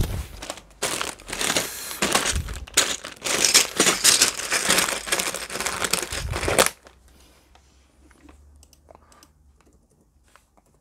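Plastic bag of LEGO pieces crinkling and rustling as it is handled over a plastic tub, stopping suddenly about two-thirds of the way through. Faint clicks of laptop keys follow.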